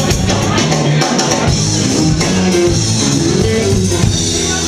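A rock band playing live, loud and continuous, with guitar and drum kit, as recorded from the room.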